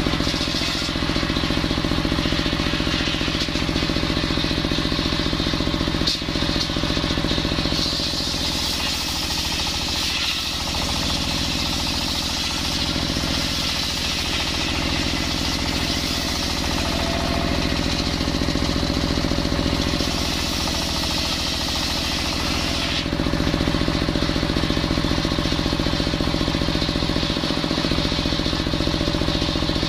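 Engine-driven circular sawmill blade ripping a coconut-wood log lengthwise over a steady engine run. The hiss of the blade in the wood is strongest through the middle of the cut while the engine note weakens under the load; a few seconds before the end the cut finishes and the engine and blade run on free.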